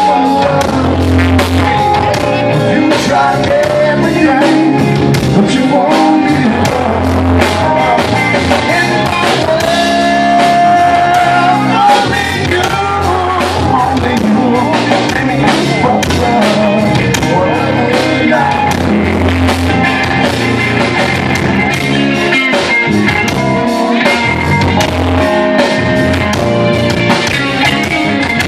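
Live blues-rock band playing: electric guitar over a drum kit, with a held, bending guitar note about a third of the way through.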